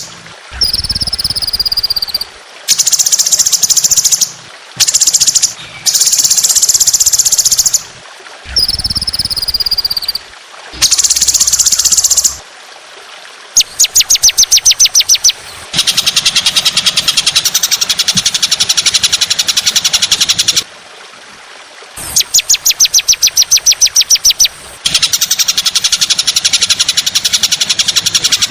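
Songbird song recorded for masteran training: loud phrases of harsh, rapid-fire repeated notes and short falling whistles, with brief pauses between them. The phrases grow longer and more chattering in the second half.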